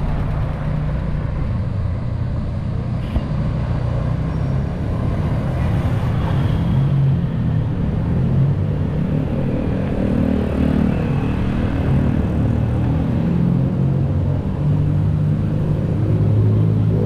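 Motorcycle engine running while riding along a street, its note shifting up and down in pitch with the throttle, over a steady low rumble of road and wind noise. A single click about three seconds in.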